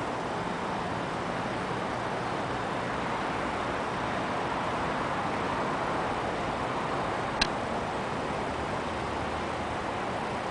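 Steady rushing outdoor background noise, with one sharp click about seven seconds in.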